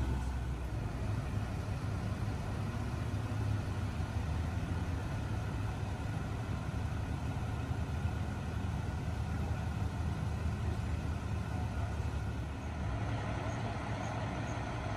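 Steady low rumble of idling vehicle engines, with a few faint high chirps near the end.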